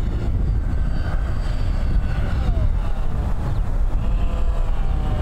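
Wind rumbling on the microphone, with the faint whine of a small electric model plane's motor and propeller changing pitch as it flies.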